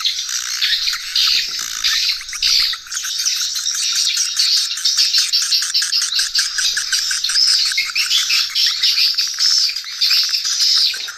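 Swiftlets twittering: a dense, unbroken run of rapid high chirps, many calls overlapping.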